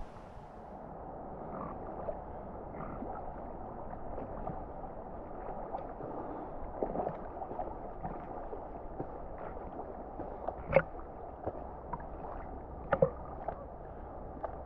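River water gurgling and sloshing, muffled, with scattered small knocks and two louder ones about eleven and thirteen seconds in.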